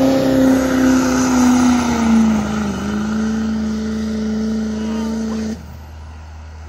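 Diesel pickup truck engine running hard at high revs while pulling the sled, its pitch sagging slightly as the load builds. The engine sound drops away sharply near the end.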